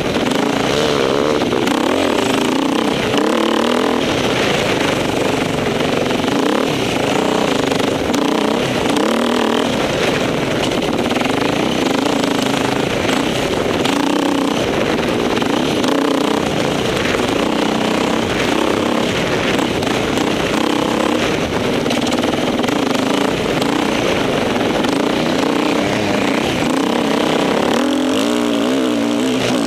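Off-road motorcycle engine running hard and without a break, its pitch rising and falling as the throttle is opened and closed.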